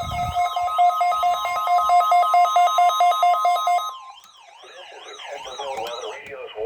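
Weather alert radio receivers sounding their alarms for a NOAA Weather Radio required weekly test: a rapid pulsing beep over a warbling siren tone. The pulsing beep stops about four seconds in, leaving a quieter warble. A low thump comes right at the start.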